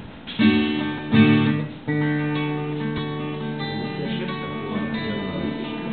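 A guitar being strummed: three chord strokes in the first two seconds, then a chord left ringing with lighter notes played over it.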